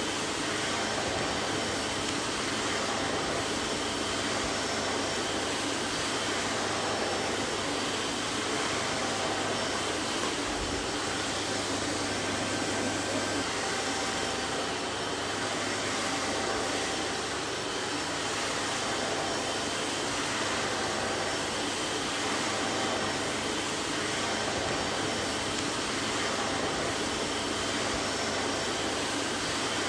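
Vacuum cleaner running steadily: an even rushing noise with a faint low hum and a thin high whine, unchanging throughout.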